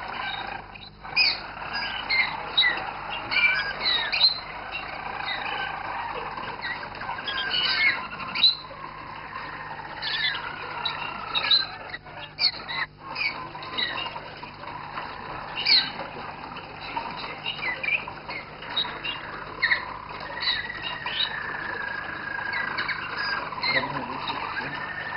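Roller canaries singing a continuous song of long rolling trills mixed with many short, sharp notes.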